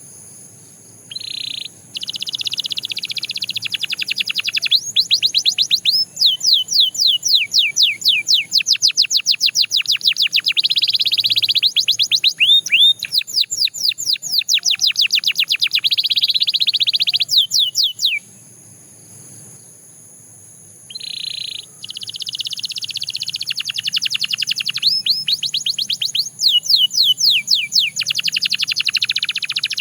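Canary singing long, rapid trills of repeated downward-sweeping whistled notes, broken by short pauses, one of them about three seconds long a little past the middle.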